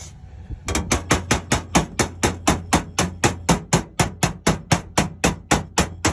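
Body hammer tapping the edges of a new sheet-metal floor pan to work it into place and close the gaps, in a steady run of sharp strikes at about four or five a second after a short pause.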